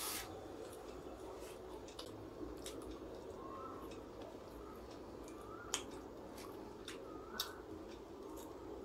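Close-up eating sounds of crispy fried chicken: scattered crunchy clicks and wet mouth sounds while chewing, with two sharper clicks in the second half.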